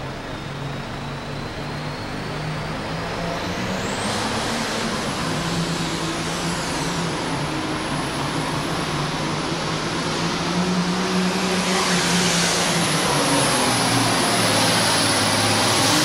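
John Deere 7610 super farm pulling tractor's turbocharged diesel engine running at full power under load as it pulls the sled down the track. The turbo whistle climbs over the first four seconds, then holds a high steady pitch while the engine grows gradually louder.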